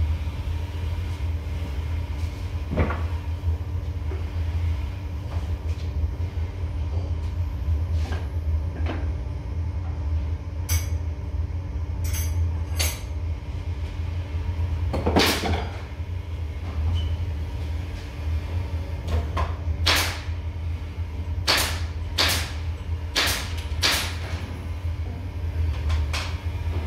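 A steady low machine hum in a woodworking shop, with scattered sharp knocks and clatters of boards and tools being handled at a spindle moulder. The loudest knock comes about halfway through, and a quick run of knocks follows near the end.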